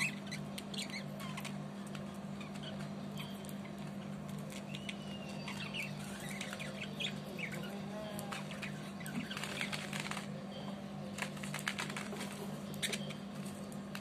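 Pet budgerigars chirping softly and chattering, with clusters of quick clicks and rustles as a budgie pecks and tears at fresh green leaves.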